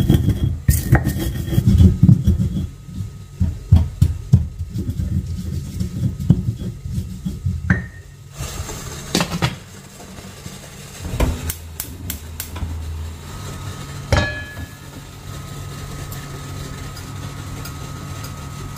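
Stone pestle pounding and grinding garlic, white peppercorns, salt and candlenuts on a flat stone mortar (cobek and ulekan), a quick run of dull thuds for about the first eight seconds. After that it goes quieter: a few separate knocks over a low steady hum.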